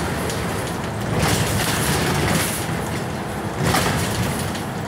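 Scania N94UB single-decker bus on the move, heard from inside the saloon: its five-cylinder diesel engine runs steadily under road and body noise, with two louder swells of rushing noise, about a second in and again just before four seconds.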